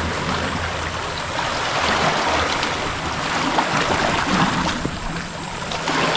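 Small waves washing and rushing on a beach shoreline, swelling a little in the middle.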